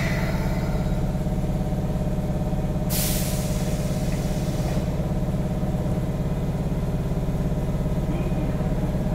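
10-series subway train standing at the platform with a steady low hum from its on-board equipment. A brief hiss of compressed air comes at the start, and a longer one of under two seconds about three seconds in, from the train's air brakes.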